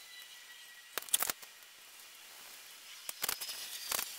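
Bicycle chain being fitted onto the chainring and rear derailleur: a few sharp metallic clicks of the links, in a cluster about a second in and another past three seconds in.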